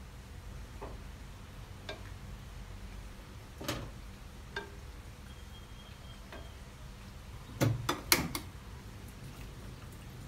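A wooden spatula stirs Japanese curry in a glass pot over a gas burner, with a low steady hum underneath and scattered light clicks of the spatula against the glass. A quick cluster of louder knocks of kitchenware on glass comes about eight seconds in.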